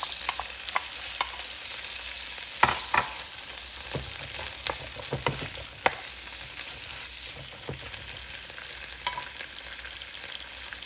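Chopped bell pepper and onion sizzling as they fry in hot oil and garlic in a ceramic nonstick pan. A wooden stick stirs them, knocking against the pan several times between about two and a half and six seconds in.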